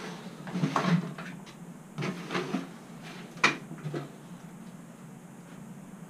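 Knocks and clunks from things being handled and moved around a workbench, in several small clusters, with the sharpest knock about three and a half seconds in.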